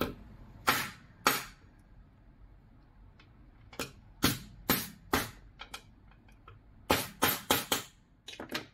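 Needle-nose pliers clicking and tapping against a small plastic RC car steering hub and its metal pin: about a dozen sharp clicks in irregular groups, with four in quick succession near the end.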